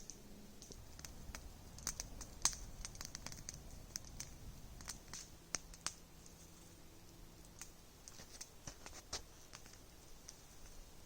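Campfire crackling, with scattered sharp snaps and pops at irregular intervals.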